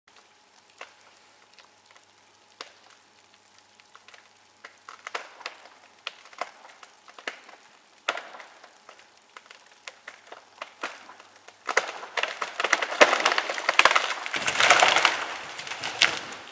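Snow-laden tree branches cracking and snapping under the weight of snow: scattered sharp snaps at first, coming more often, then about twelve seconds in a long rush of splintering wood as branches break and crash down with their load of snow, with a deep heavy crash near the end.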